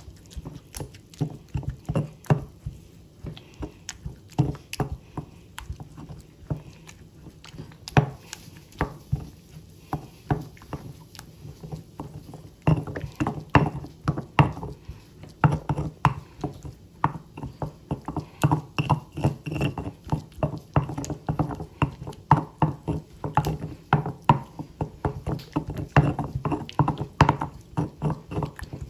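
Stone pestle (tejolote) pounding and grinding roasted tomatoes and serrano chiles in a volcanic-stone molcajete: a steady run of knocks, a few a second, growing louder and busier about halfway through.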